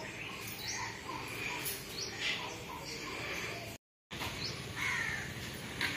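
Crows cawing repeatedly in short calls, with a brief total dropout of sound about two-thirds of the way in.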